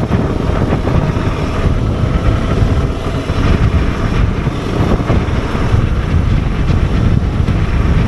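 Motorcycle riding at low speed: a steady low rumble of engine and wind on the microphone.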